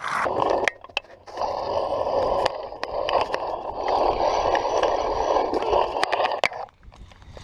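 Zipline trolley pulleys rolling along a steel cable, a steady whirring hiss with a few sharp clicks, briefly interrupted about a second in. It cuts off sharply near the end as the rider comes to a stop on the line.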